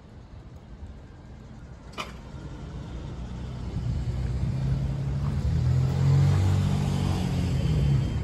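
A road vehicle's engine approaching and getting steadily louder, a low rumble that peaks a few seconds before the end. A single sharp click about two seconds in.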